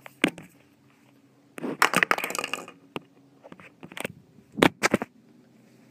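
Handling noise on a phone's microphone: fingers rubbing and scraping against the phone as it is moved about, a stretch of scraping about two seconds in and a few sharp clicks near the end.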